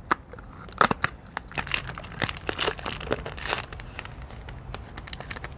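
Crinkly candy wrapper being handled and torn open, a rapid run of crackles and rustles that is busiest in the middle.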